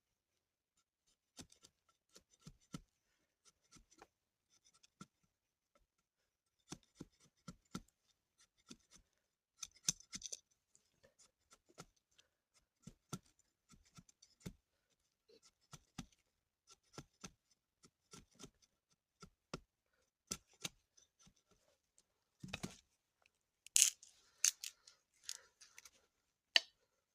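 Scattered light clicks and snips, a few a second, like small hand tools or scissors at work. A louder rustling scrape comes a little past the middle, then a few sharper clicks near the end.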